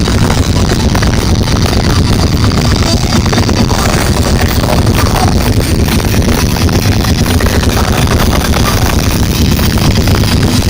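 Live punk band playing loud, the recording heavily overloaded and distorted into a dense, even wall of noise.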